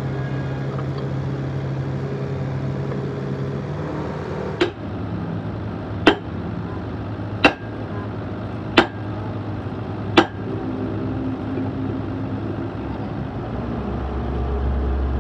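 Five sharp metal clanks, about a second and a half apart, from a truck fifth wheel coupling's lock mechanism being worked with a steel bar, over a steady low background hum.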